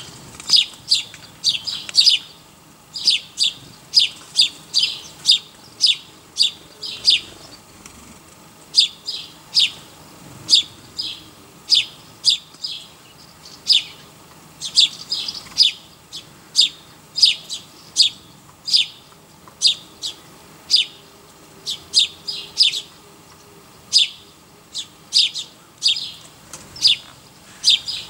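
A bird chirping over and over: short high chirps in runs of several, about three a second, with brief pauses between the runs.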